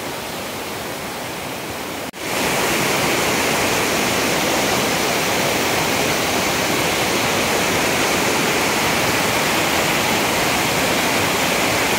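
Steady rushing of a waterfall's water. It turns louder and fuller after a sudden cut about two seconds in.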